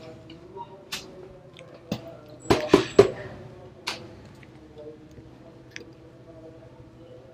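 Hands working a rubber window seal on a steel car door frame: scattered light clicks and taps, with three louder knocks in quick succession about two and a half seconds in.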